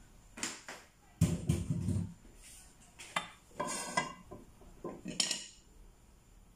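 Pots and a wooden spoon clattering on a gas stove: about six separate knocks and clanks, the heaviest and deepest about a second in.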